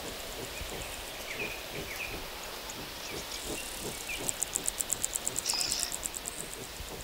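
Grassland ambience with an insect trilling: a rapid, high-pitched pulsed chirping of roughly a dozen pulses a second, which swells about four seconds in and fades out over the next two seconds. A few faint short chirps sound at about a second and a half in.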